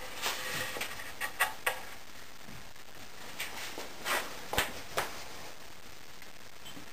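Light knocks and clatter of wooden pieces being set down and shifted by hand on a pegboard-and-plywood box: a handful of sharp taps about a second in, then another short group about four to five seconds in.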